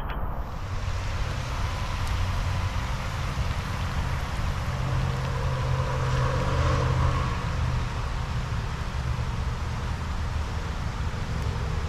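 Steady outdoor noise: a hiss of light rain falling on open water over a constant low rumble.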